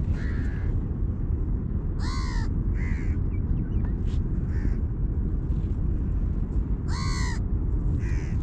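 Crows cawing: about six short, harsh caws, the loudest two about two seconds in and near the end, over a steady low rumble.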